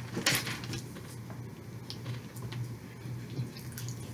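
A sheet of paper is lowered onto the table with a brief rustle, then come faint light ticks and scratches of felt-tip markers working on paper, over a low steady hum.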